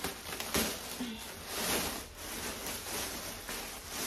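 Clear plastic garment bag crinkling and rustling as a coat is pulled out of it, in a few uneven swells.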